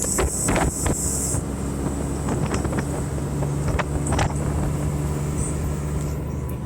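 Mercedes-Benz O500MDA articulated bus's diesel engine running steadily. A short burst of hiss comes at the start, and a few knocks and rattles come in the first second and again around four seconds in.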